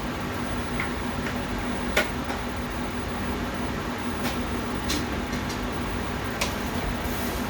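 Steady hum of a running kitchen appliance, with four light clicks and taps scattered through it.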